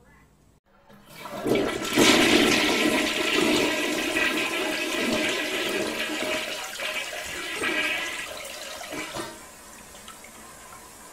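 Toilet flushing: a rush of water that swells about a second in, runs loudly for several seconds, then dies down to a quieter trickle.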